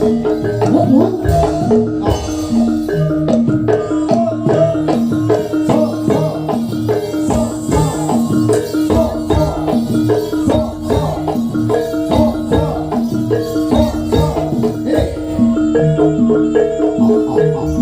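Live gamelan music for a jaranan horse dance: bronze metallophones struck with mallets in fast repeated notes over a steady percussion rhythm.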